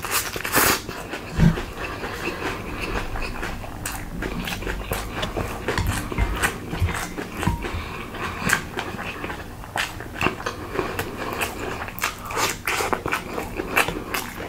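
Close-miked eating: food being chewed and crunched, with many irregular crisp clicks and crackles.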